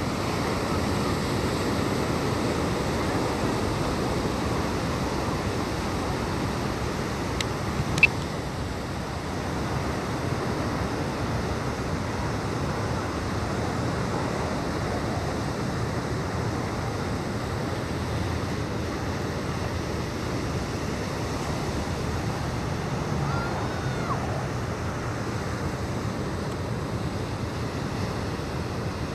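Steady rushing noise of wind and sea water at sea, with a single sharp click about eight seconds in.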